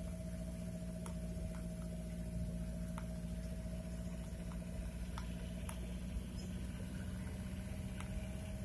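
Chevrolet LUV 4x4 pickup driving at a steady pace, heard from inside the cab: a constant low engine and road hum with a faint steady whine above it, and a few light ticks from the cab.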